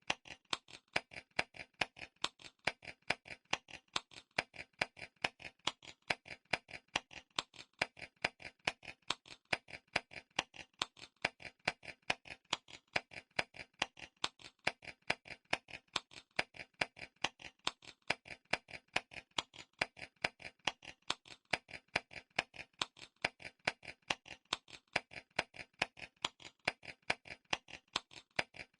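Clock timer ticking steadily with reverb added, an even run of sharp ticks several times a second that alternate louder and softer strokes.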